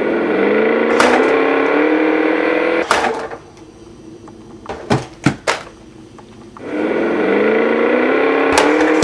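Small toy car's motor whining: it rises in pitch and then holds for about three seconds, stops with a knock, and starts up again about two-thirds of the way in. A few light knocks fall in the quieter gap between.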